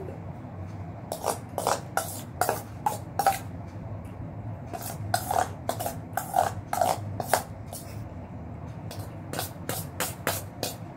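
Metal spoon scraping and clinking in a stainless steel bowl of milk and puffed rice, in three runs of quick, irregular clicks.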